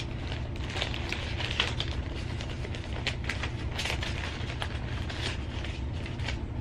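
Plastic bag crinkling and rustling in irregular crackles as hands rummage through it, over a steady low hum.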